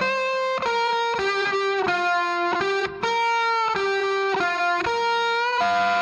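Background music: a single melody line of held notes, changing pitch every half second or so.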